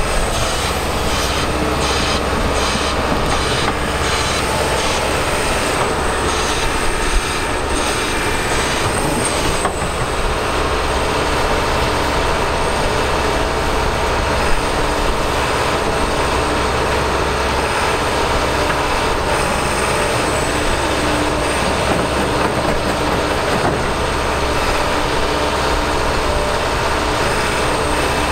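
Kobelco SK210LC excavator working, its diesel engine running steadily under load with hydraulic whine as the boom and arm move, and a regular rhythmic clatter in the first ten seconds or so.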